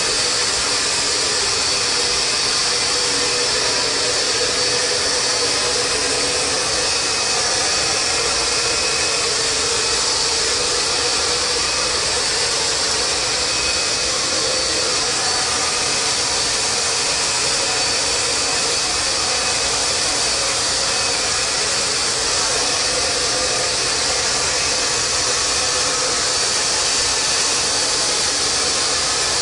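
Hand-held hair dryer running steadily: a continuous blowing hiss with a faint, even motor whine.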